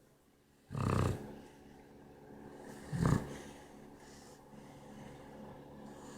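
A female Shar-Pei dog snoring: two loud snores about two seconds apart, with quieter breathing between them.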